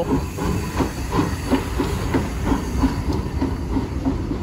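Steam tank locomotive passing slowly while hauling a railcar: its exhaust chuffs in a steady rhythm of about three beats a second over a low rumble and hiss of steam.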